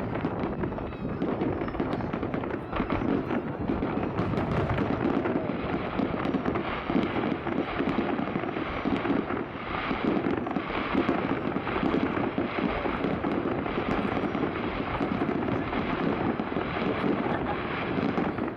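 Fireworks display: a dense, continuous barrage of bursting shells and crackling pops, with no pauses.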